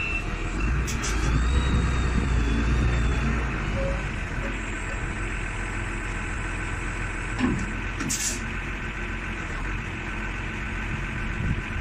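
Cat DP150 diesel forklift engine running, a little louder for the first few seconds, then settling to a steady idle. Two brief high hisses cut in, about a second in and again about eight seconds in.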